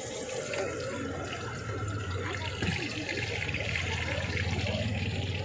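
Gas burner running under a kadai of frying oil at a street food stall: a steady hiss over a low hum, the hiss growing louder about halfway through.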